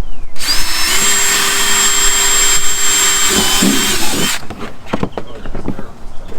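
Power drill running for about four seconds, boring a mounting hole for a rock light, then stopping suddenly; a few light knocks follow.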